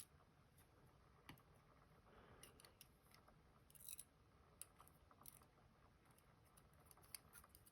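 Near silence, broken by a few faint, light clicks of small metal lock parts being handled as the last driver pin and spring come out of the lock.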